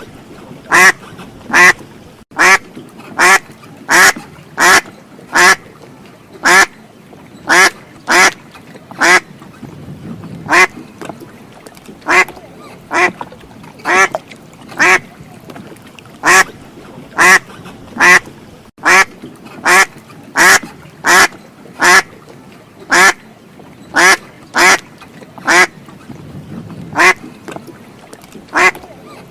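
Duck quacking over and over, a steady run of loud single quacks about one and a half a second, with a few brief pauses.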